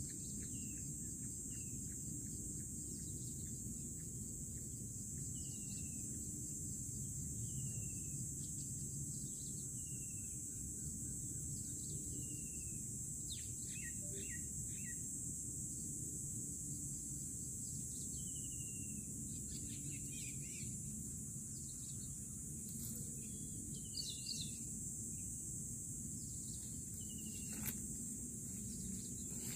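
Jungle bush quail calling: short whistled notes that fall in pitch, repeated every second or two, with a few quick chirps in between, over a steady high insect hiss.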